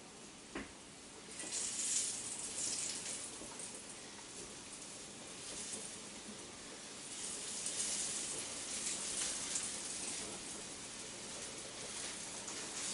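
Thin floured chicken breasts sizzling in hot, smoking olive oil in a frying pan. The sizzle starts up about a second and a half in as the chicken goes into the oil and swells again around the middle.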